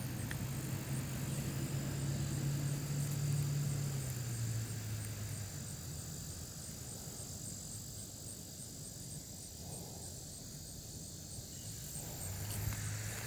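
A distant motor's low drone swells, drops slightly in pitch and fades out about halfway through, then comes back near the end. Insects chirp throughout in a faint, even, high-pitched pulse.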